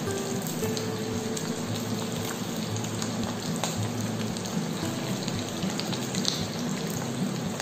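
Pieces of ikan baung catfish deep-frying in hot oil with a steady sizzle. A few light clicks come from metal tongs against the pan as the fish is turned.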